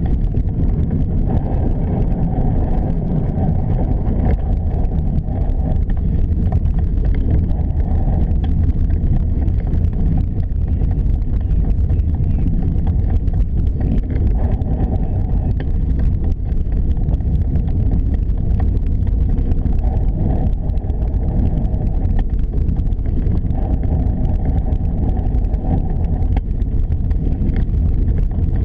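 Steady wind buffeting and low rumble on a moving action camera's microphone, with faint scattered rattles.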